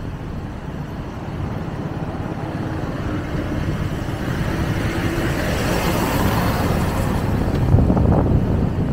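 Motorcycle on the move: a steady low engine rumble under wind and road noise, slowly growing louder.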